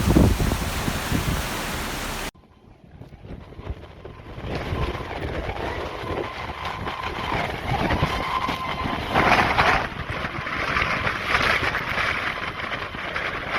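Typhoon wind and rain buffeting the microphone, cut off abruptly a little over two seconds in; then a steady vehicle-like running noise that grows louder, with a faint held tone.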